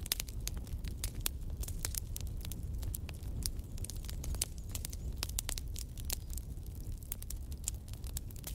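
Wood logs burning in a fireplace: many irregular crackles and pops over a steady low rumble of the flames.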